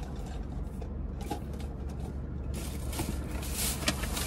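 Rustling and a few light clicks from purchased items being handled, over a steady low hum. The rustling grows stronger after about two and a half seconds.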